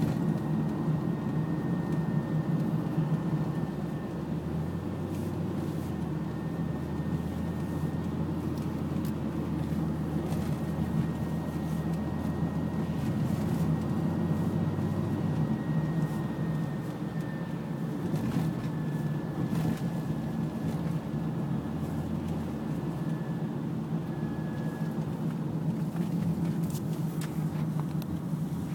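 2002 Honda Odyssey minivan driving, heard from inside the cabin: a steady low drone with a thin high whine over it that drifts slightly lower and stops near the end. This is the grinding noise under throttle that the owner says is still there after a transmission repair.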